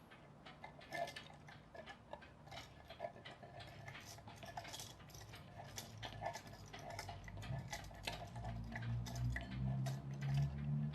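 Mechanical clock ticking, a clock partly rebuilt with 3D-printed parts. A low hum comes in about eight seconds in.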